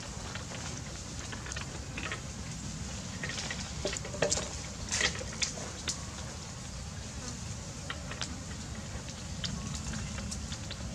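Outdoor ambience with a steady hum of insects and scattered light clicks and crackles, the loudest cluster about halfway through.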